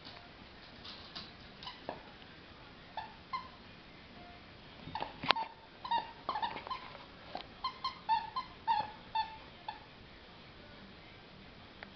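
A Shih Tzu playing with a plush toy: a run of short, high squeaks and whines, several in quick succession about halfway through, with one sharp click about five seconds in.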